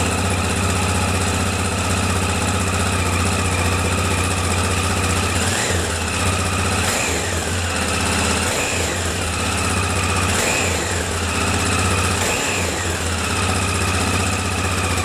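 Honda XL600R's single-cylinder four-stroke engine idling, then revved in about five short throttle blips from about five seconds in, each rising and falling back to idle. It is running on a newly fitted Ignitech DC CDI.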